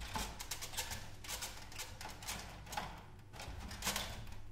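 Hand screwdriver working the screws out of a CRT tube assembly's mounting frame: irregular clicks and scrapes of metal tool on screw and frame.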